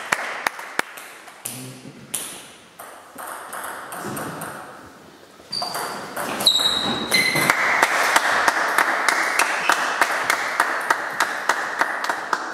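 Table tennis rally: the ball clicking off the bats and the table top in a quick, steady rhythm, over a background hiss that grows louder about halfway through.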